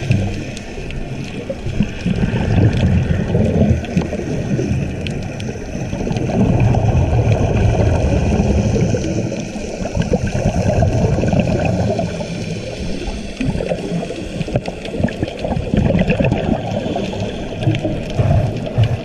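Underwater noise recorded by a GoPro in its waterproof housing: a muffled, gurgling wash of water that swells and fades every few seconds.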